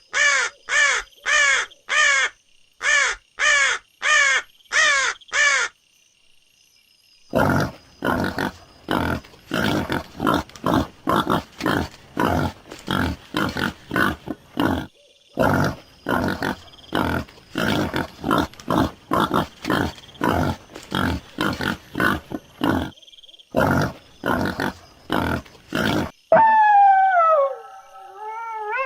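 A series of about eight short, harsh caws, then, after a pause, a long run of rapid grunts at about two or three a second; near the end a dog starts howling with long gliding notes.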